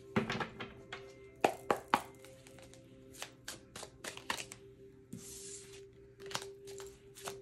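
A deck of oracle cards being shuffled in the hands: a run of sharp card clicks and slaps, with a short swishing riffle about five seconds in. Soft background music with a held note plays underneath.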